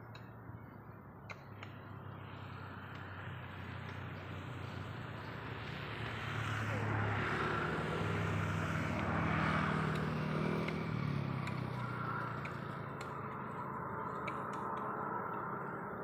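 A motor vehicle going by: engine hum and tyre noise grow louder, peak about nine or ten seconds in, then slowly fade. A few faint clicks come in the first two seconds.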